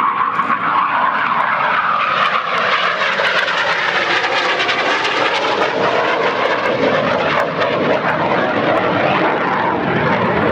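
IAR 99 Soim jet trainer's Rolls-Royce Viper turbojet running loud and steady in a display flyby, a continuous jet rush whose tone sweeps slowly up and down as the aircraft passes.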